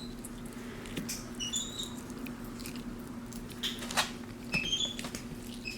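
Capuchin monkey giving short, high chirping squeaks, a quick rising run of them about one and a half seconds in and again near the end, among faint clicks and squishes of her hands working a ball of cold slime. A steady low hum lies underneath.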